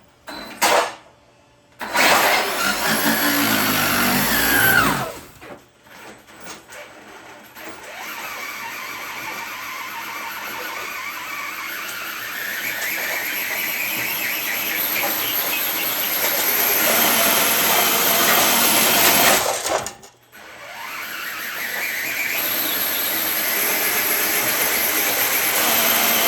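RC truck's motor and drivetrain whining under load while pulling a dead-weight sled. It runs in short bursts at first, then in one long pull that slowly gets louder, stops briefly about twenty seconds in and starts again.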